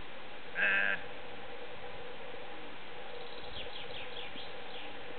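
A sheep bleats once, a short quavering call about half a second in.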